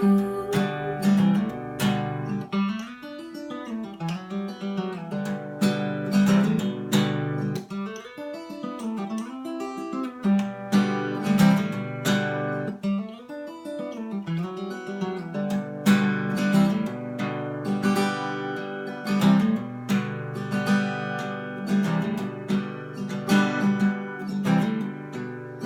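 Acoustic guitar playing an instrumental break, strummed and picked chords in a steady rhythm.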